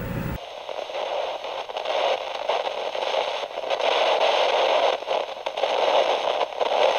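Steady hiss of radio static, thin like an old radio channel, with faint crackle.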